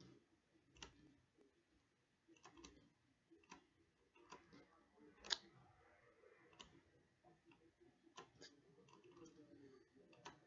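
Faint, irregular computer mouse clicks, about a dozen, the loudest about halfway through.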